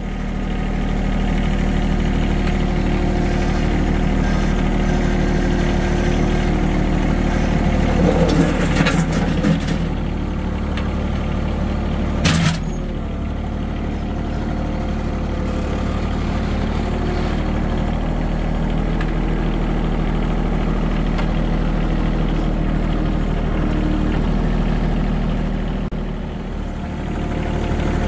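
Compact farm tractor's engine running steadily while pushing a vehicle with its front loader, with a single sharp clunk about twelve seconds in.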